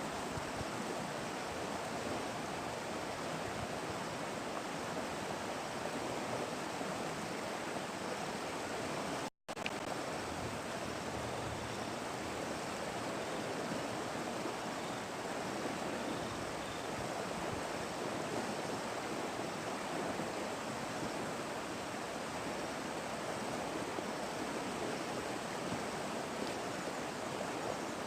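Steady rush of flowing river water, with a momentary break about nine seconds in.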